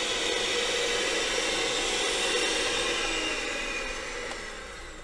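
Electric hand mixer running, its twin wire beaters whipping egg yolks and sugar in a stainless steel bowl with a steady motor whine. Near the end the motor slows and the sound fades as it is switched off.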